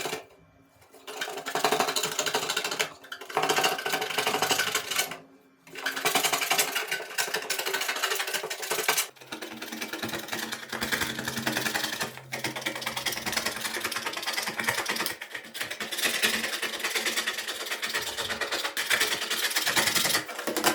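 A small machine with a rapid, fine repeating action, running in stop-start runs of one to four seconds with short pauses between them.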